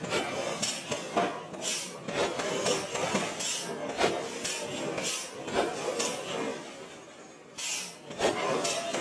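Rough scraping and rasping of metal in a forge, in short irregular strokes, with a lull about seven seconds in before the strokes resume.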